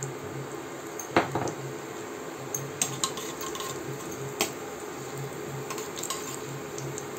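A steel spoon stirs ginger and cumin seeds through hot ghee in a stainless steel pressure cooker, scraping and clinking against the pot, with the sharpest clink about a second in. The ghee sizzles quietly underneath.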